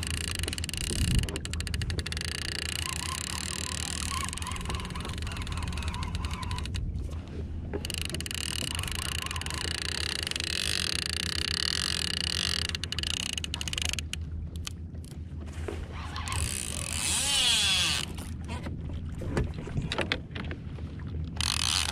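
Sea water sloshing and slapping against a plastic kayak hull, with wind rumbling on the microphone and the mechanical whirr and clicking of a conventional fishing reel being cranked against a hooked fish. A louder rush of water comes near the end.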